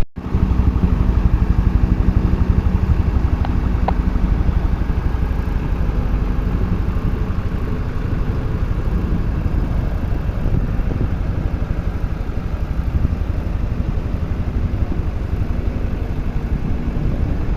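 Fire truck's engine running steadily and loudly, a dense low rumble with no siren.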